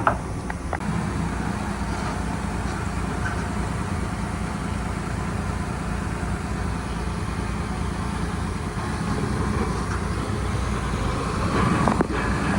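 Heavy diesel engine running steadily at a low, even speed, with a few sharp clicks at the very start and a louder stretch of clatter near the end.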